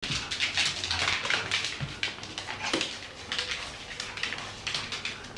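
Yorkshire terrier making a string of short whimpering and yapping sounds while play-fighting with a cat.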